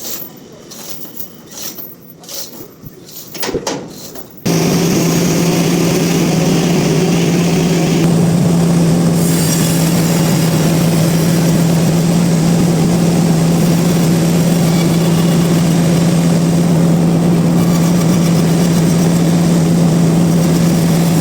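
Scattered knocks and scrapes, then about four seconds in a loud, steady machine sound with a constant low hum and a hiss cuts in suddenly and runs on unchanged: large sawmill machinery running.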